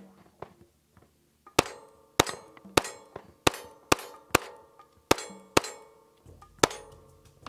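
Springfield Armory XD-S Mod.2 .45 ACP pistol fired nine times in quick succession, about two shots a second, starting about a second and a half in, each shot sharp and loud with a brief ringing echo.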